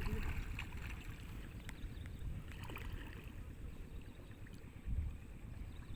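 Low, steady rumbling noise with a few faint clicks scattered through it. It eases off about two-thirds of the way in.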